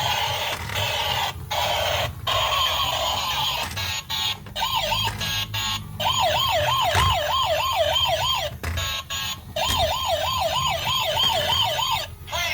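Electronic toy police-car siren warbling fast, about four wails a second, in short stretches broken by abrupt cut-outs.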